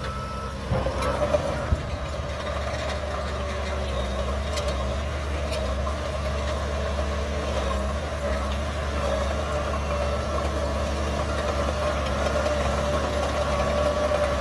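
Shantui DH17C3 bulldozer's diesel engine running steadily, with two sharp knocks between one and two seconds in.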